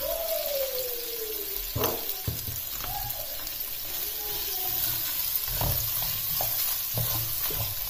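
Sliced onions and whole spices sizzling in hot oil in a non-stick saucepan, being fried toward brown, with a spoon stirring and knocking against the pan a few times.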